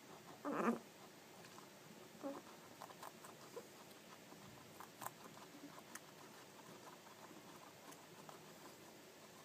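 A short, pitched animal sound about half a second in and a weaker one about two seconds later, with scattered faint clicks and ticks.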